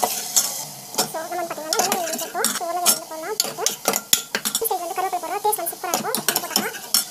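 A steel spoon stirring and scraping a thick ground paste in a pan, with repeated sharp clinks against the pan and squeaky scraping tones over a light sizzle.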